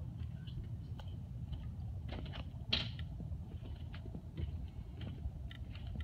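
Small splashes and water lapping at close range, scattered light ticks and pattering over a steady low rumble, with one brief louder splash about two and a half seconds in.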